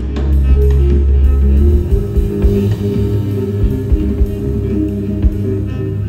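Rock band playing live: electric guitar over a heavy bass line and drum kit.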